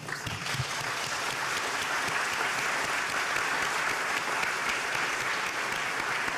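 Audience applauding: dense, steady clapping from a roomful of people.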